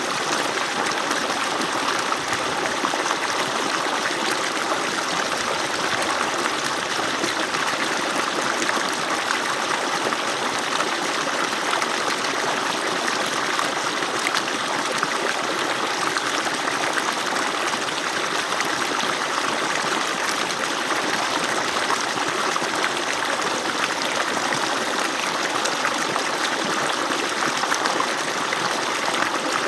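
Water falling steadily from an agricultural pump's outlet pipe: a constant, even rush of water.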